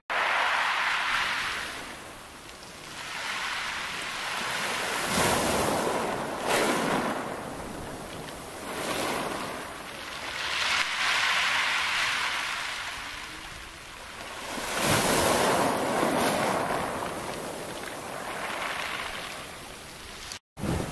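Small waves breaking and washing up over a shingle beach, then drawing back. The hiss of the surf over the pebbles swells and fades about every four to six seconds.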